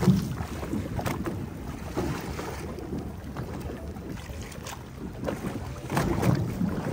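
Small fishing boat rocking on a swell: wind on the microphone and water washing against the hull, with a few short knocks.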